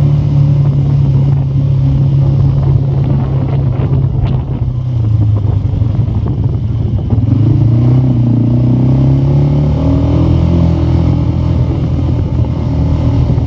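A vehicle's engine running under way. It holds a steady note, dips about five seconds in, then rises again about two seconds later as it pulls on.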